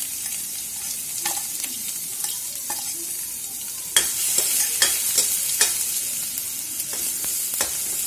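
Ginger-garlic paste sizzling in hot mustard oil in a kadai while a metal ladle stirs it, scraping and clinking against the pan. About four seconds in the sizzle gets louder and the ladle knocks come more often.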